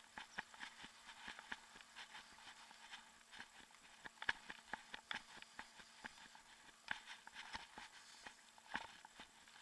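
Faint, irregular footsteps and small clicks of a person walking on a paved street, with a faint steady hum underneath.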